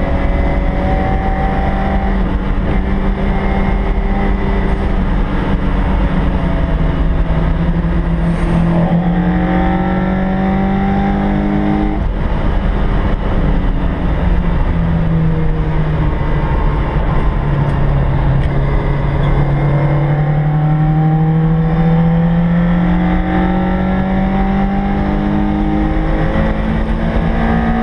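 Toyota AE86's 20-valve four-cylinder engine pulling under load, heard from inside the cabin, its pitch climbing slowly with speed, dropping twice midway, then climbing again. Steady road and wind rumble underneath.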